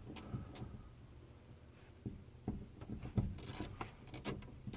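Hand tools clicking and scraping on a metal fuel line fitting while it is being undone, in scattered short clicks with a few brief scraping bursts past the middle.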